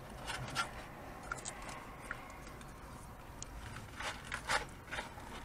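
Faint rustles and short clicks of fast-food packaging being handled and fried food being eaten, with a couple of louder crackles about four seconds in.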